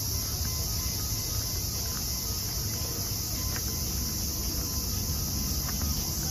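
A steady high-pitched insect chorus that never lets up, over a low, uneven rumble.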